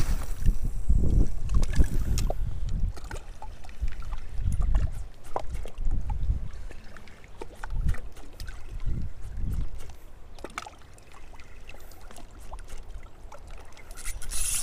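Wind buffeting the camera microphone in gusts, stronger in the first half, with scattered small clicks from handling the spinning rod and reel.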